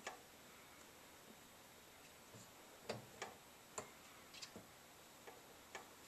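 Faint, irregularly spaced light clicks and taps, about eight in all, from a cat moving about inside an empty dishwasher and nosing at the wire rack.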